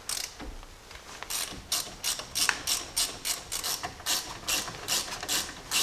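Hand socket ratchet clicking in a quick, even run, about four clicks a second from a little over a second in, as the brake caliper bolts are backed out.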